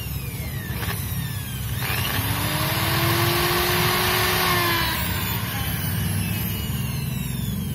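Corded electric drill spinning up and boring a hole through a motorcycle's plastic body panel. It whirs with a whine that climbs slightly for about three seconds and then runs down, over a steady low rumble.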